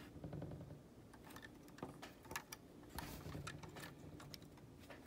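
Faint scattered clicks and light rubbing from hands handling a small diecast model car.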